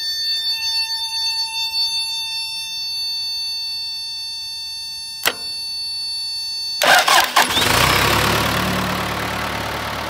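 A steady electronic buzzer tone with a sharp click about five seconds in; then, near seven seconds, the backhoe's diesel engine cranks for under a second with a few clicks, catches, and settles into a steady idle. The starter is being turned over by bridging its solenoid terminals with a pocket-knife blade, bypassing the ignition.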